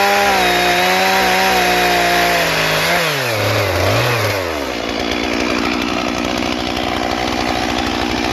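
Stihl MS 461 two-stroke chainsaw running at high revs with its pitch wavering under load as it cuts through a log. About three seconds in the revs drop, and it settles to a steady idle.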